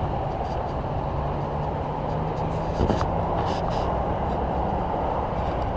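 Steady rumble of road traffic with a low engine hum that drops out a little past halfway, and a single sharp click about three seconds in.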